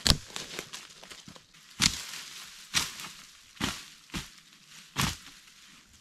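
Footsteps crunching through dry fallen leaves and twigs on a forest floor, about six steps roughly a second apart.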